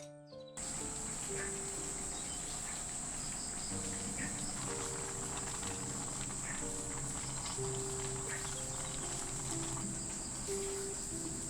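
A steady, high-pitched insect drone over slow background music of long held notes.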